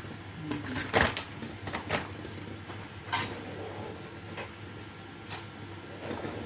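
A paper flour bag crinkling as it is handled and folded, with a few knocks and clatters of kitchen handling, the sharpest about a second in.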